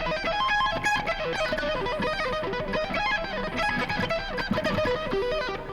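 Electric guitar playing a fast, continuous run of rapidly changing notes: a chaotic-sounding symmetrical lick stretched out to major-third intervals.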